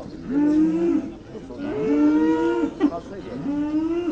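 Heifers mooing repeatedly: three long, fairly high-pitched moos of about a second each in quick succession, with a second animal's call overlapping the middle one. A short knock comes about three seconds in.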